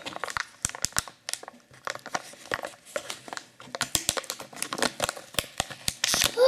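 Small plastic toy wrapper from a Kinder Joy egg being handled and opened by hand, crinkling with many sharp irregular crackles that come thicker over the last couple of seconds.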